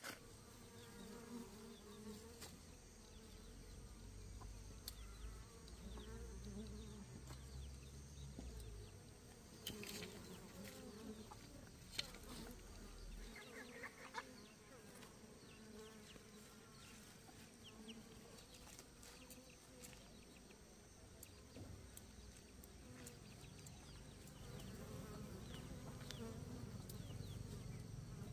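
Faint insect buzzing: a wavering drone that hovers and drifts in pitch, with a few light clicks or taps partway through.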